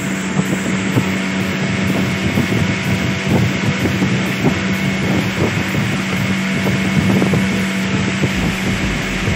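Fiberglass boat's motor running steadily under way, a constant hum, with wind rushing past.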